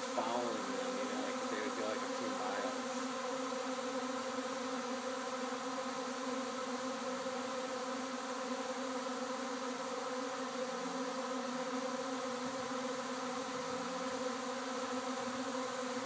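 Honeybee swarm buzzing: a steady, dense drone of many wings. In the first few seconds single bees fly close past the microphone, their buzz bending up and down in pitch.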